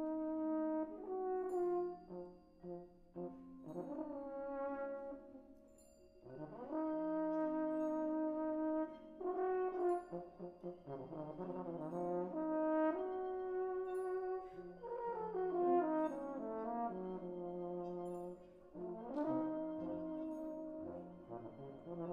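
A British-style brass band playing sustained, slowly changing chords that swell and fade. The sound thins out between about two and six seconds in, then the full band comes back in.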